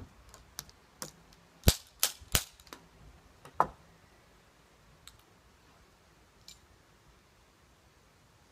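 Loading a muzzle-loading underhammer percussion pistol: sharp metal knocks of the ramrod in the barrel, with three loud ones close together about two seconds in and another with a short ring just before four seconds, then a couple of faint clicks.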